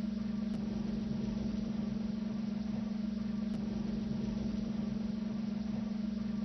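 Airwolf helicopter cockpit interior ambience sound effect: a constant steady hum with an even hiss above it.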